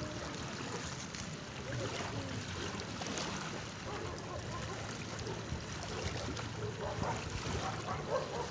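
Small waves washing in and draining back over a pebbly, rocky shore: a steady wash of water.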